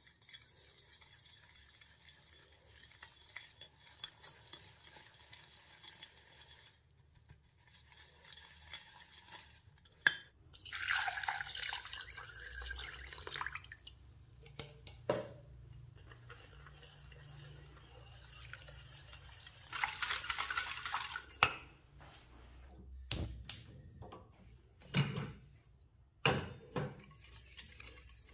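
Wire whisk scraping and clinking against a stainless steel bowl, mixing egg, sugar and cornstarch, then milk poured in with a splashing pour twice in the middle, followed by whisking the liquid. A few sharp knocks of metal on the bowl come near the end.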